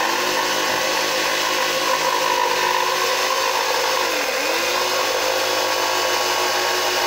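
Electric jigsaw running steadily as it cuts scrap wood. Its motor pitch dips briefly about four seconds in, then picks back up.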